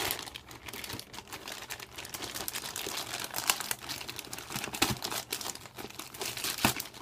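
A shipping package being opened by hand: its wrapping crinkling and tearing in dense, irregular crackles and sharp rips.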